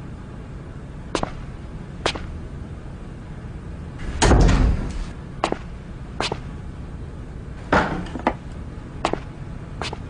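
A door being struck repeatedly: a run of sharp knocks about a second apart, with two heavy thuds, about four seconds in and near eight seconds in, as someone tries to force a locked door open.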